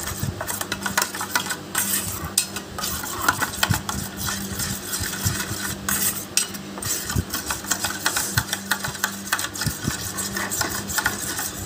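Yogurt and spice paste being mixed by hand in a stainless steel bowl: irregular wet scraping and small knocks against the steel, over a steady low hum.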